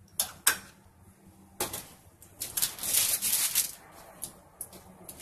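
Hand pepper grinder being twisted over a dish: a few clicks at first, then a couple of seconds of rapid gritty ratcheting clicks in bursts as peppercorns are ground.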